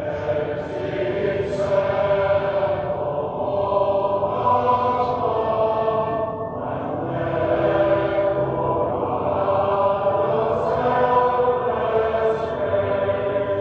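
Choir singing in slow, sustained phrases, played back from a recorded video over the sanctuary's speakers.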